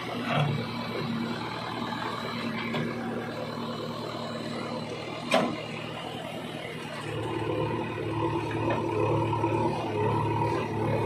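JCB 3DX backhoe loader's diesel engine running as the backhoe digs, with one sharp knock a little past halfway. About seven seconds in, the engine note grows louder and uneven.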